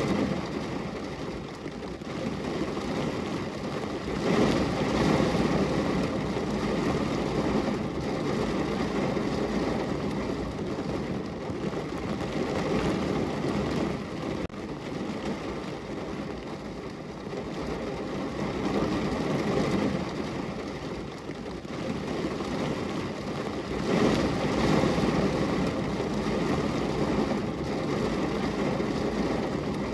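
Steady rain on a window, an even noise with most of its weight low down that swells and eases every few seconds.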